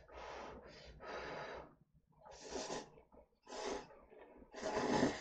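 Instant cup noodles slurped off chopsticks in about five short, noisy slurps roughly a second apart, the last one the loudest.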